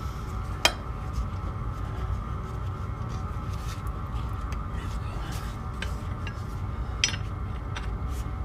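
Metal tools and parts clinking and knocking against each other, with two sharp clinks about a second in and near the end, over a steady low hum.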